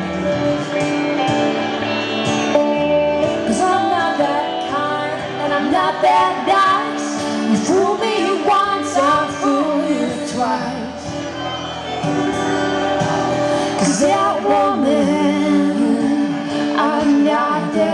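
Live music: a song played on electric guitar and acoustic guitar, with a woman singing.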